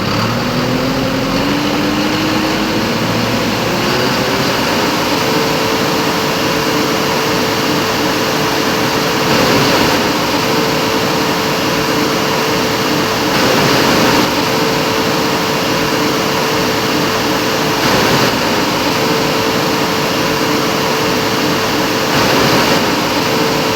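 Tractor engine rising from idle to a steady working speed, with a whine that climbs over the first five seconds and then holds, dipping briefly about every four seconds.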